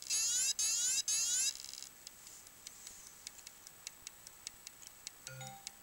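Dead IBM 2.5-inch 720 MB laptop hard drive making three short rising chirps in quick succession, then ticking faintly and steadily about four times a second. A brief low hum comes a little past five seconds in.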